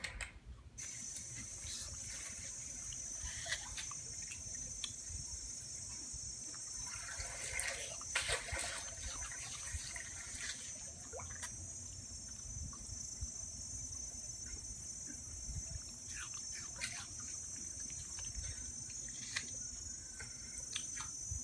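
Yorkshire terrier chewing pieces of apple: scattered wet crunches and mouth clicks over a steady high-pitched hiss.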